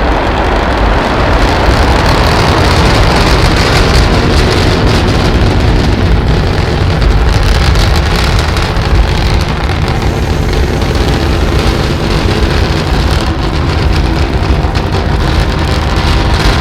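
Designed sound for the Perseverance rover's descent to Mars: a loud, steady rushing noise over a heavy low rumble, in the manner of engine and atmosphere noise, with no pauses.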